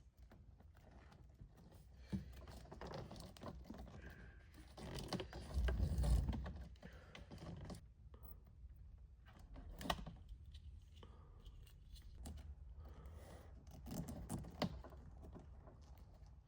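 Scattered clicks, snips and scrapes of hands working on small wiring connectors, with a louder low knock about six seconds in.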